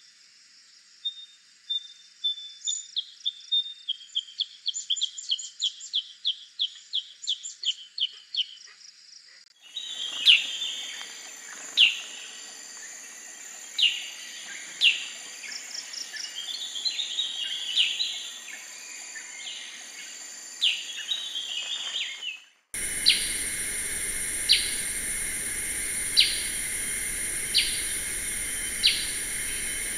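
Black-headed bulbul calls from several recordings joined together. First comes a quick run of short chirps at about four a second. About ten seconds in, that gives way to mixed chirps and short phrases, and later to a single sharp call repeated every second and a half or so over a steady high hiss.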